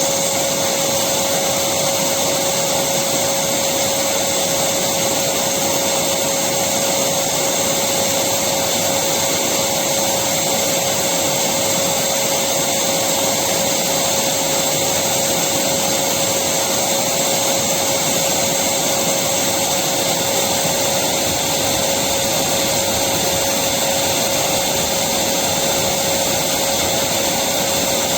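Electric vacuum cleaner running steadily: an even rush of air with a constant motor whine that holds one pitch throughout.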